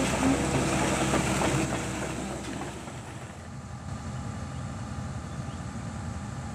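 Kobelco crawler excavator's diesel engine running as the machine travels on its tracks, with a dense clattering noise; about three seconds in the sound drops to a quieter, steady engine running.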